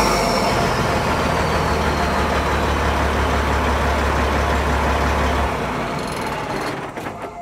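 Diesel engine of a 2005 Freightliner Columbia 120 semi truck running through a straight 6-inch Dynaflex Bull Hauler stack with the stock exhaust removed, giving a deep, steady idle, with a faint high whine dropping in pitch over the first two seconds. The low drone cuts off about five and a half seconds in, and the sound dies away with a few light clicks.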